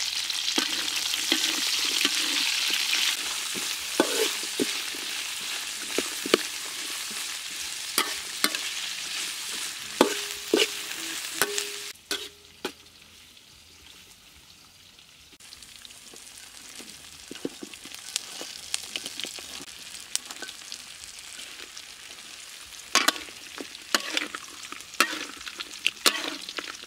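Lemongrass, galangal, kaffir lime leaves and chilies sizzling in hot oil in a wok, with a metal spatula clinking and scraping against the pan as they are stirred. The sizzle drops away about twelve seconds in. It comes back fainter, now with pieces of fried field rat, and sharp spatula knocks on the wok near the end.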